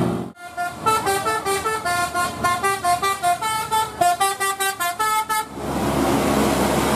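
Multi-tone 'telolet' bus horn (basuri horn) playing a quick tune of short stepped notes, about four a second, for nearly five seconds, then steady engine noise.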